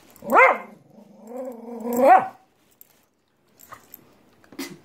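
Dog begging for food with two vocal whines: a short one that rises and falls, then a longer, lower one held steady before it climbs and drops away about two seconds in.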